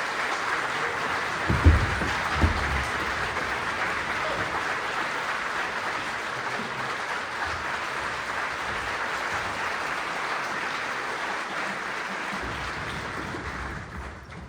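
Concert-hall audience applauding steadily, with two low thumps about two seconds in. The applause dies away near the end.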